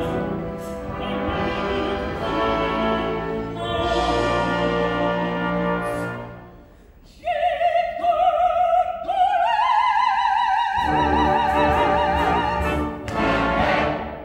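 Operetta orchestra playing with chorus, then dropping away as a solo female singer holds a long high note with wide vibrato, stepping up in pitch twice; the orchestra then comes back in loudly and cuts off near the end, closing the number.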